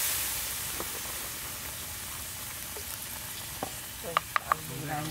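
Whole softshell turtle braising in a wok, the liquid bubbling and sizzling steadily, with a few sharp pops about four seconds in.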